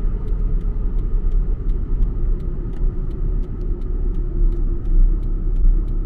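Car driving at road speed, heard from inside the cabin: a steady low rumble of tyres and engine.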